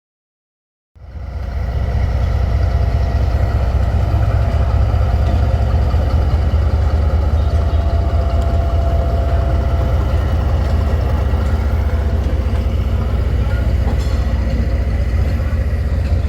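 Diesel locomotive engine running steadily, deep and low-pitched, cutting in suddenly about a second in.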